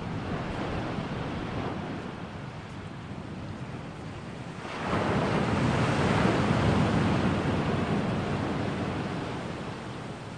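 Ocean surf washing steadily, with one wave surging louder about five seconds in and then slowly fading away.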